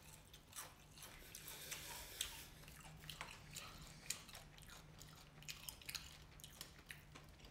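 Faint chewing and biting of fried catfish nuggets and french fries, with scattered small crunches and mouth clicks.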